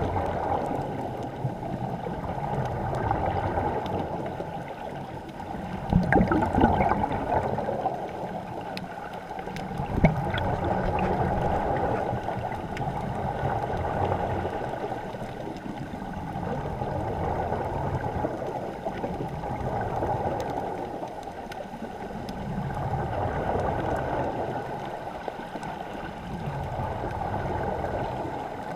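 Muffled underwater rushing and gurgling of water and air bubbles, swelling and easing every few seconds. A couple of sharp knocks sound about six and ten seconds in.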